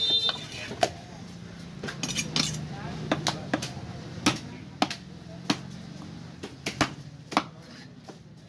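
A long fish-cutting knife knocking and scraping against a wooden chopping block as it slices through barramundi flesh, in a string of sharp irregular knocks, about one or two a second.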